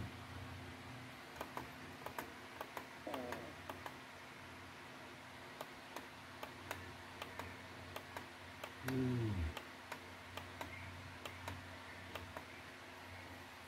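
Faint room tone with a steady low hum and light clicks at irregular intervals, broken twice by a short falling-pitched call; the louder call comes about nine seconds in.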